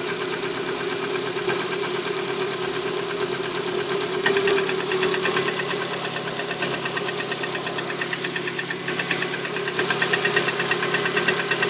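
Lada Priora's 1.6-litre 16-valve VAZ-21126 four-cylinder engine idling cold with a rhythmic piston knock. The knock goes away when the ignition coil is pulled from cylinder 4, which points to a worn piston group in that cylinder.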